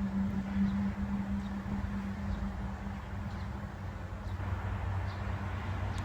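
Large dump truck's diesel engine running at a steady idle, a constant low hum.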